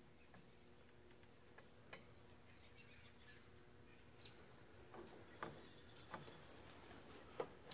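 Near silence with a few faint, sharp metal clicks from hands working a small fitting at a snowblower's carburetor. A brief faint high chirp comes about five and a half seconds in.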